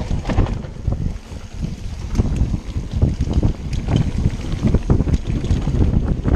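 Mountain bike ridden fast down a dirt trail: heavy wind noise buffeting the camera microphone, with the bike rattling and knocking over the rough ground and tyres rumbling on dirt.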